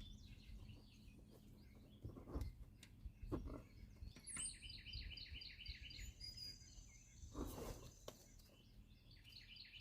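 A bird singing faintly, a phrase of quickly repeated short notes about four seconds in, with a few soft knocks and rustles of handling in between.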